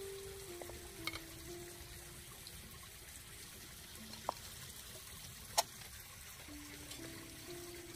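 Soft background music: a slow melody of single held notes. A few light clicks of dishes being set down on a wooden stump table, the sharpest about five and a half seconds in.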